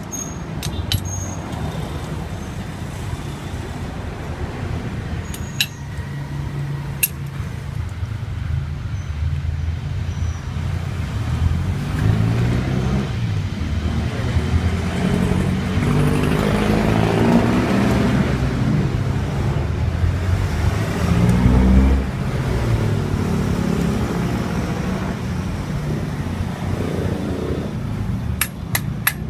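Road traffic: motor vehicle engines running and passing by, swelling for several seconds midway as one comes close, with a few sharp clicks near the beginning and end.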